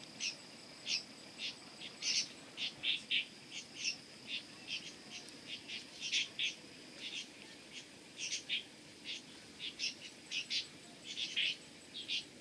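Forest insect and bird chorus: a steady high-pitched drone with many short, high chirps layered over it, irregularly about three or four a second.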